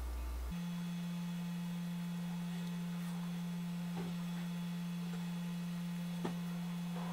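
A steady hum, a single pure tone, that steps up to a higher pitch about half a second in, with two faint clicks in the second half.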